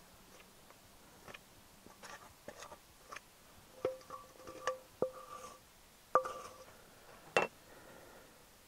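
Metal utensils knocking and scraping against a steel mixing bowl as dough is turned out onto a wooden board: a string of taps, several of which leave the bowl ringing briefly. A sharp knock near the end.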